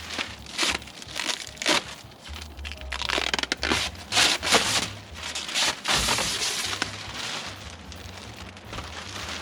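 Protective plastic film being peeled off a polycarbonate sheet and crumpled: an irregular run of crinkling, tearing rasps.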